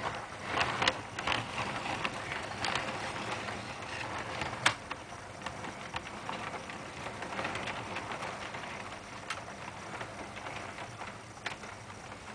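O scale toy train cars on Lionel trucks rolling along metal track, a steady clatter of wheels with sharp clicks over the rail joints, fading as the train moves away.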